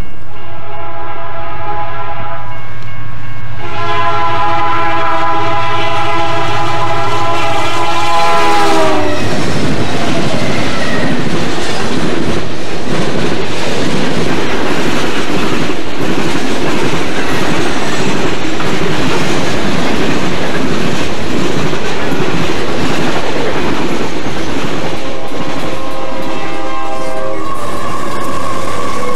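A diesel freight locomotive's multi-chime horn blows a short blast, then a long one whose pitch drops as the engine passes. The rumble and clickety-clack of the freight cars rolling by follow, and the horn sounds again near the end.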